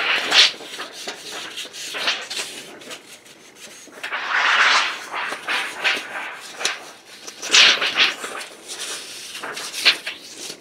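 Steel wool rubbed by hand along the edges of a thin titanium windscreen panel in a series of scratchy strokes, the longest about four seconds in. It is the hand deburring that follows the wheel work, smoothing the cut edges.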